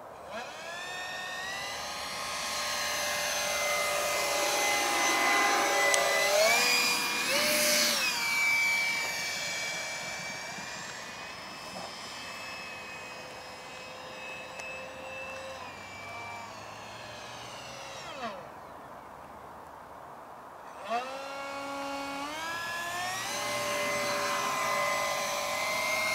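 Electric ducted fans of an RC XB-70 Valkyrie model whining, the pitch stepping up and down as the throttle is worked. The whine sweeps past once about eight seconds in. It cuts out briefly around eighteen seconds, then spools back up in steps.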